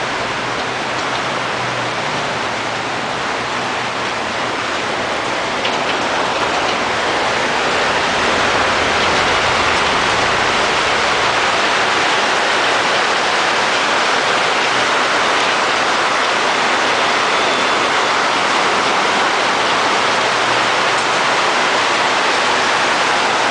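Steady rushing air from the automatic egg incubator's blower fan, an even hiss without distinct tones, growing a little louder about six seconds in.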